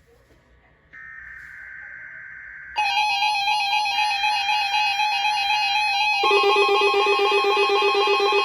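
Electronic alert tones of a NOAA Weather Radio weekly warning-system test. A softer steady high tone starts about a second in. At about three seconds a much louder steady multi-tone alarm takes over, and a lower tone joins it near six seconds.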